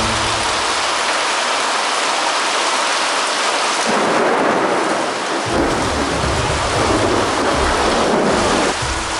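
Heavy storm rain falling, a dense steady hiss of water. From about four seconds in it grows heavier and deeper, then drops off abruptly near the end.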